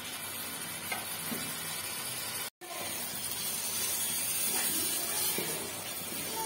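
Mashed mutton brain and yogurt sizzling in hot oil in a steel pot while being stirred with a wooden spatula: a steady frying hiss. The sound cuts out for an instant about two and a half seconds in.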